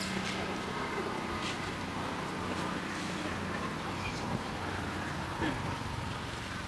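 A steady low hum over an outdoor background noise, with a few faint clicks.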